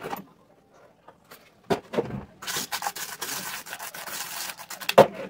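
A spoon stirring small round sprinkles in a glass bowl, a steady scraping rattle lasting about two seconds from midway through. A few knocks come before it and a sharp click near the end.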